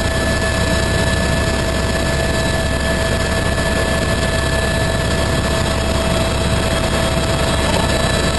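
Helicopter in flight heard from inside the cabin: a steady engine and rotor drone with a constant whine running through it.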